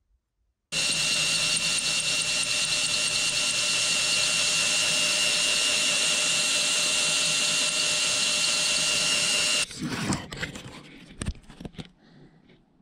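Power drill with a twist bit boring through the sheet-metal roof channel of a 2008 Toyota Tundra, a steady whine that starts suddenly, runs about nine seconds and stops abruptly. A few light knocks and rustles follow.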